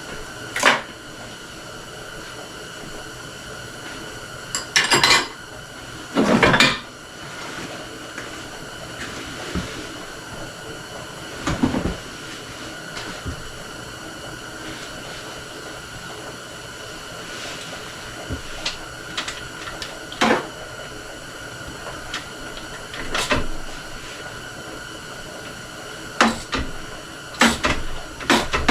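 Metal hand tools clinking and scraping at irregular intervals on a 1996 Honda Fourtrax 300's valve adjusters while the valve clearance is set, with a cluster of clatters near the end, over a steady background hum.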